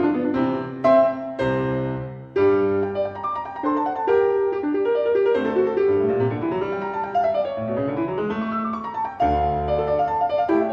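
Background music played on piano, a quick run of notes over sustained chords.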